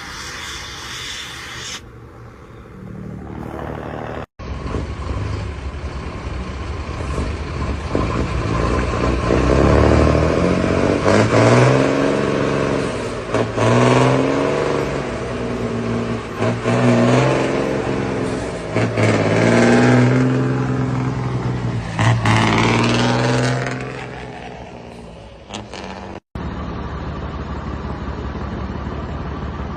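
Old diesel truck engines with loud, free-flowing exhausts, heard in cut-together clips. In the middle, one engine is revved again and again, each rev rising and falling in pitch; near the end, after a sudden cut, an engine runs steadily.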